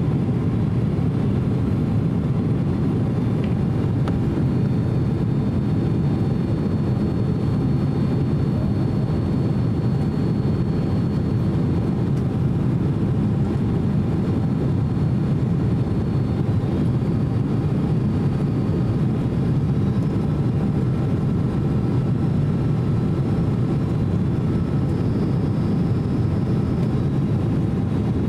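Steady cabin noise inside a Boeing 767-300 airliner on final approach: an even low rush of airflow and engines, with faint high whine tones coming and going.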